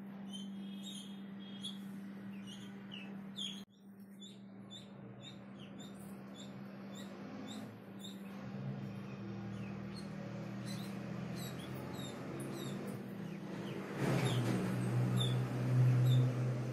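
White Pekin ducklings peeping over and over in short high chirps, over a steady low hum that grows louder near the end.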